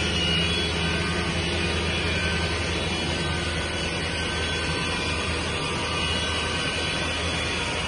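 Steady mechanical hum of factory machinery, with a constant low drone and faint steady high tones above it.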